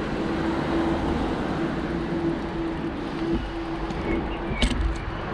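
Bicycle rolling along a towpath: steady tyre and wind noise on the camera with a constant hum, and a few sharp clicks or rattles near the end.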